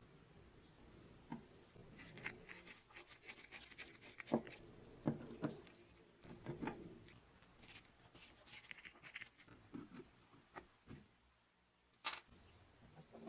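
Faint hand-tool work on an old wooden spirit level: a screwdriver scraping and clicking at the small screws of its brass end plate, and pliers gripping metal at its edge. Scattered sharp clicks and scrapes, the loudest a few seconds in, then another single click near the end.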